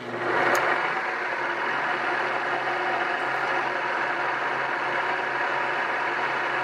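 Drill press running steadily while drilling holes in small aluminium rib attachment angles for a Bearhawk flap. Its steady whir comes up at the start and runs unchanged.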